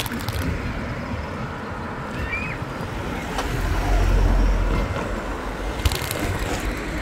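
Wind buffeting a bicycle handlebar camera's microphone while riding, over a steady rumble of road noise; the buffeting swells about halfway through. A sharp knock comes a little before the end.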